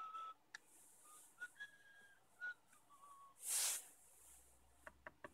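A few short whistled notes at different pitches, with a brief hiss about three and a half seconds in and a couple of small clicks near the end.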